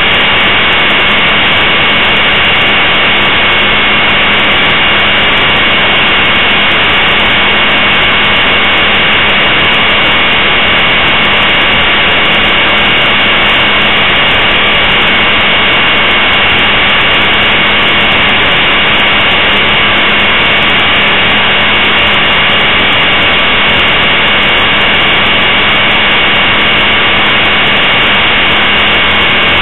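Blade 450 3D electric RC helicopter's motor, drive gears and rotor, heard from a camera mounted on the helicopter: a loud, steady whine with several constant high tones, the rotor held at an even speed in a hover.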